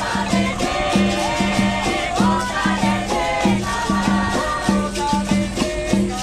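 Capoeira roda music in the Angola style: berimbaus playing a steady repeating rhythm together with a shaker rattle and other pitched parts.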